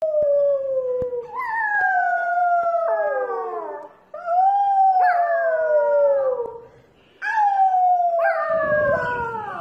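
Small puppy howling: three long howls, each sliding down in pitch.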